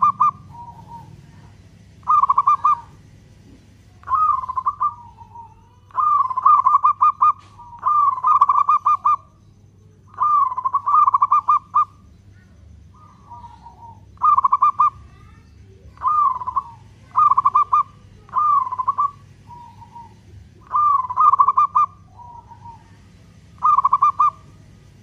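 Zebra dove (local perkutut) cooing in full song: short phrases of rapid staccato coos, repeated about every one to two seconds, with softer, lower notes between some phrases.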